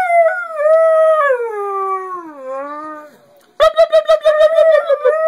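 Part-husky dog howling. One long howl slides steadily down in pitch and dies away about three seconds in. A new howl starts half a second later with a quick warbling onset.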